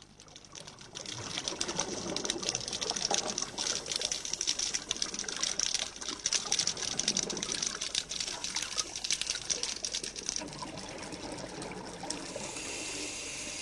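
Underwater sound of the sea: a dense crackle of tiny clicks over a water hiss, settling into a steadier hiss near the end.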